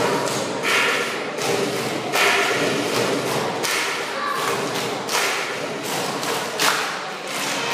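Heavy thuds landing at uneven intervals, about every second or so, over dance music in a large hall.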